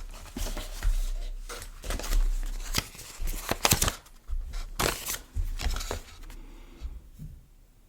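Handling noise: a string of irregular clicks and taps with some rustling, as a small baitcasting reel is turned over in the hands and its packaging shifts. The sounds thin out in the last second.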